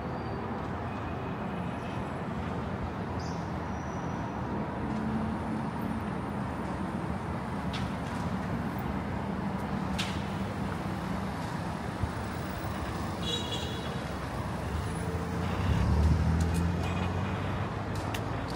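City street traffic: a steady wash of passing cars and buses with low engine rumble. A heavier vehicle's engine swells louder near the end.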